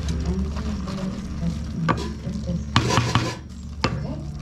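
Pilau rice being stirred in a cooking pot, the utensil scraping and knocking against the pot a few times, with a cluster of knocks around three seconds in. A steady low hum runs underneath.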